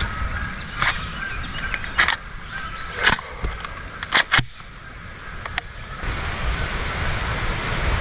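Scattered sharp clicks and knocks as a shotgun is handled, swung up and then lowered, over a steady low rumble.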